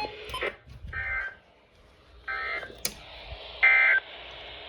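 NOAA Weather Radio SAME digital data tones: three short buzzy bursts about a second and a half apart, the end-of-message code that closes a broadcast warning.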